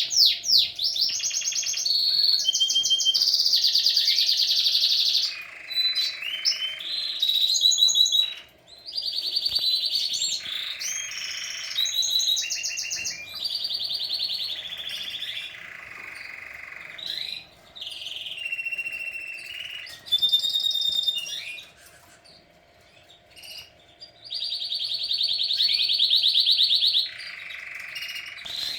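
Domestic canary singing a long song of fast rolled trills and repeated whistled notes, phrase after phrase, with short pauses between bouts. A faint steady hum runs underneath.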